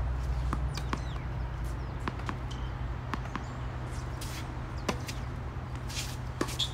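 Tennis ball struck by rackets during a doubles rally on a hard court: scattered sharp pops, mostly faint and distant, with a louder hit about five seconds in and two more near the end. A steady low rumble runs underneath.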